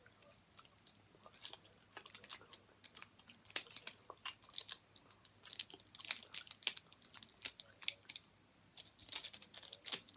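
Plastic segments of a Rubik's Snake clicking as they are twisted, giving faint, irregular clicks that come in small clusters, sparse at first.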